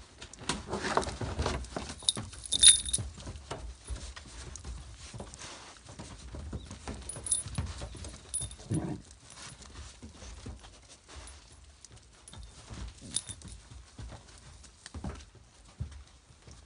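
Jindo puppies and their mother moving about a pen: scuffling and rustling with scattered clicks and a few bright metallic clinks, and a short dog yelp about nine seconds in.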